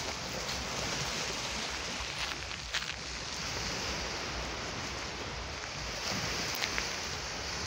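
Small Black Sea waves breaking and washing up a sandy shore in a steady rush, with wind buffeting the microphone.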